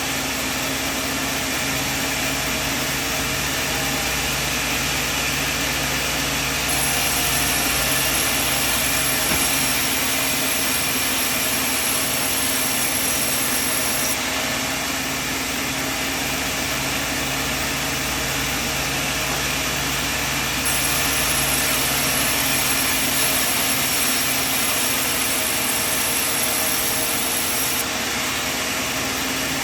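Sawmill machine running steadily with a mechanical hum. Twice, for about seven seconds each, it grows a little louder and a high whine joins in.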